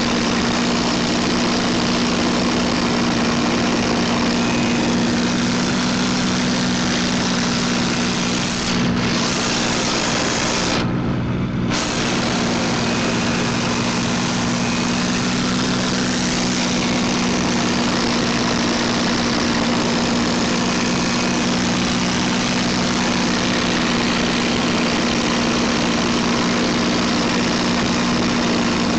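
Packard Merlin V-12 engine of a two-seat P-51 Mustang running steadily at cruise, heard from inside the cockpit under heavy rushing air noise. The sound briefly dulls about eleven seconds in.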